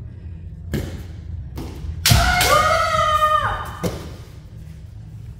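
Kendo exchange: a loud crack of a bamboo shinai strike together with a stamping foot, followed at once by a high, drawn-out kiai shout lasting about a second and a half. A few lighter knocks come before and after it.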